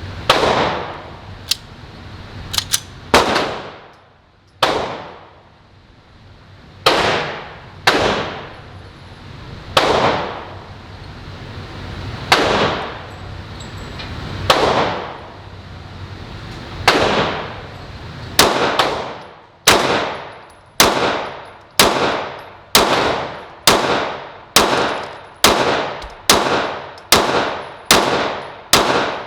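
Glock pistol fired in a long string at an indoor range, each shot loud with a long echoing tail. The shots come slowly, a second or two apart, at first, then speed up to about one a second for the second half.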